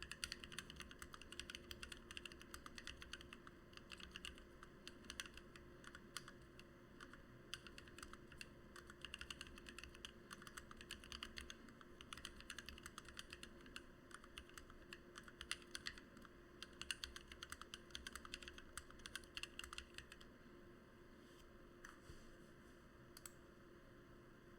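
Continuous typing on a Lily58 split mechanical keyboard with lubed, filmed Gateron Black Ink V2 linear switches, PBT OEM-profile keycaps and an acrylic plate. The steady run of keystrokes thins to a few isolated presses about twenty seconds in.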